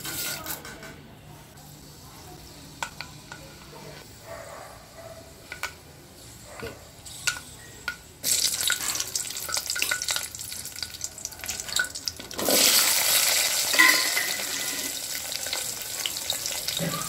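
Hot cooking oil in a metal pot sizzling as ingredients are added, with scattered pops from the spice seeds at first. About eight seconds in the sizzle suddenly gets much louder, and a little after twelve seconds it jumps louder again when small onions and curry leaves go into the oil, then slowly settles.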